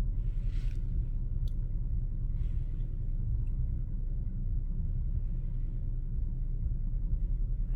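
Steady low rumble of a car sitting stopped in traffic, its engine idling.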